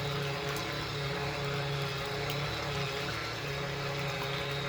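Small portable washing machine's motor running with a steady low hum as it agitates a sponge filter in water.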